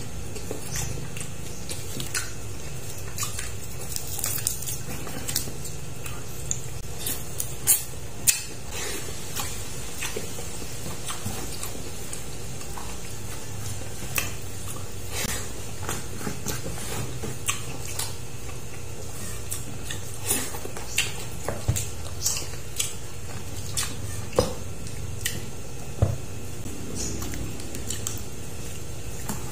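Eating sounds: scattered light clicks and taps from a meal eaten by hand off a banana leaf and served from a clay pot, over a steady low hum. Two sharper clicks stand out about eight seconds in.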